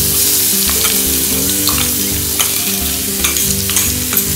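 Freshly added green chilli paste and onions sizzling steadily in hot oil in a steel kadai.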